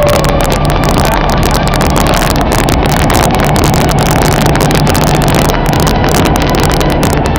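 Loud, steady wind rush buffeting the camera microphone during a parachute descent under canopy, with rapid crackling from the gusts hitting the mic.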